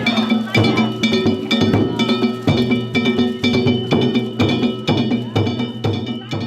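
Danjiri festival music: hand-struck gongs (kane) clanging and drums beating in a steady, fast rhythm, the gongs ringing on between strikes.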